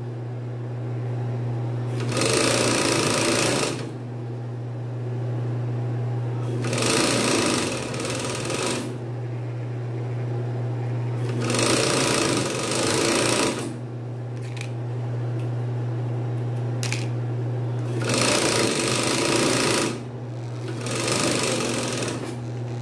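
Industrial coverstitch machine (galoneira) stitching in five short runs of about two seconds each, topstitching the elastic waistband of pajama pants. Its motor keeps up a steady hum between the runs.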